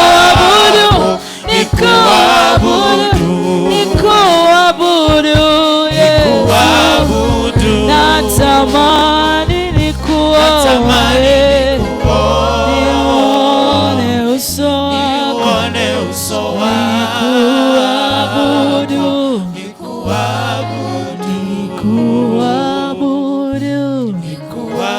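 Gospel worship singing: voices singing a slow melody over a keyboard and bass accompaniment.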